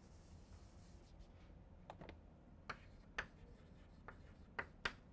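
A faint chalkboard eraser wipes for under a second at the start. Then chalk writes on a blackboard in short taps and scratches, about seven ticks spread over the last three seconds.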